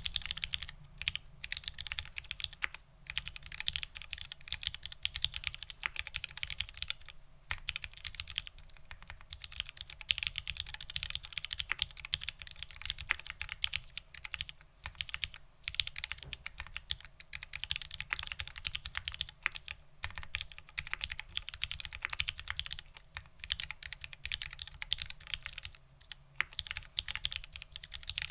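Continuous typing on a Polaris 60 WKL mechanical keyboard with vintage Cherry Black linear switches, a POM plate and ABS doubleshot keycaps: a dense, fast run of keystroke clacks, broken by a few short pauses.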